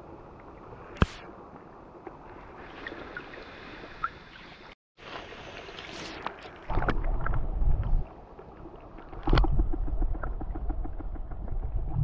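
Mountain stream water recorded with the camera submerged. A steady wash of flowing water comes first, with a sharp click about a second in. The sound cuts out for a moment just before the middle, and the second half has loud low rumbling surges of turbulent water with fast ticking of moving grit and pebbles.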